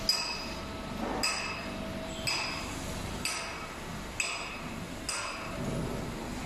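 Sharp metallic clanks at an even pace of about one a second, each ringing briefly, over a steady machine hum.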